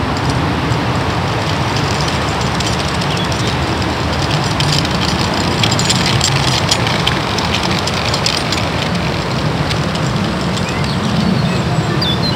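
Wind buffeting a camcorder's built-in microphone: a steady, deep noise that crackles in the middle.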